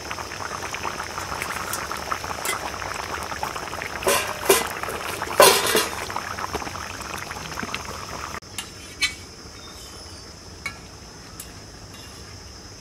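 Mango fish curry bubbling at a rolling boil in an iron pan over a wood fire, with a few louder sputters about four to six seconds in. After about eight seconds the bubbling cuts off to a quieter background with a few light clicks.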